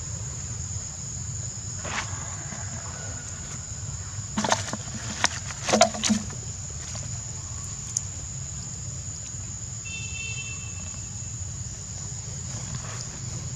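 Steady high-pitched insect drone, from cicadas or crickets. Between about four and six seconds in come a few short rustles and scuffs, the sound of monkeys scrambling over stones and dry leaves.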